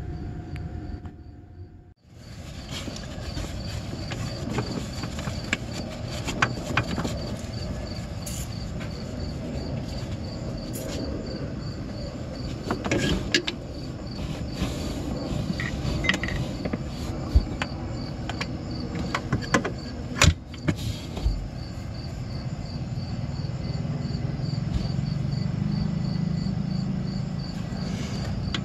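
Scattered small clicks and knocks of hands fitting plastic oil-injection lines onto a snowmobile's oil pump, over steady outdoor background noise with insects chirping in an even, repeating pulse. A low rumble grows louder near the end.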